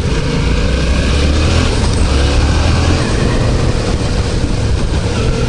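Yamaha MT-07's 689 cc parallel-twin engine running under way, its low exhaust note easing about three seconds in, with wind and road noise on the rider's microphone.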